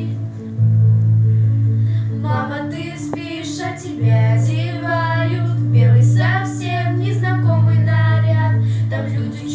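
A woman's voice singing sustained phrases with vibrato over a recorded backing track whose low bass notes are held for a second or more, changing a few times.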